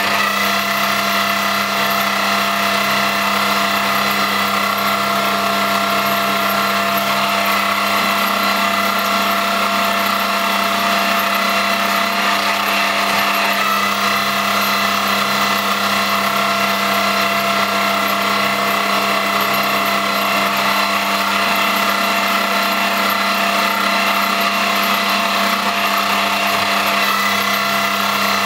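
X3 benchtop milling machine running steadily, with a constant whine from its motor and gears over a mechanical rattle.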